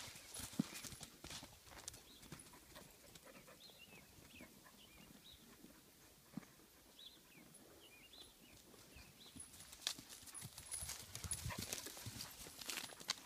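Hoofbeats of a week-old foal trotting and running on grass and dirt: scattered soft knocks, thickest near the start and again in the last few seconds, with a quieter stretch in the middle.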